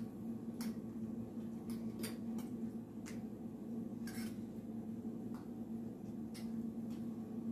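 Light, irregular clicks of a utensil against a mixing bowl as shredded-potato pancake batter is stirred, over a steady low hum.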